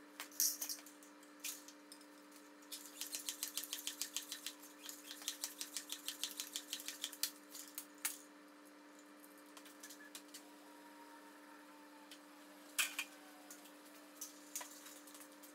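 Hands-on work on a bicycle in a repair stand: a quick run of light mechanical ticks for about four seconds, then a few scattered clicks and knocks, over a steady low hum.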